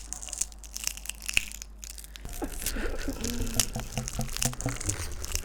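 Crunching and crackling foley, a dense run of sharp snaps and crackles like something being crushed, with a lower pulsing sound joining about two seconds in.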